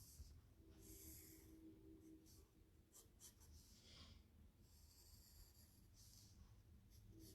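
Faint pencil strokes on paper: a few scratchy lines drawn one after another, with short pauses between them.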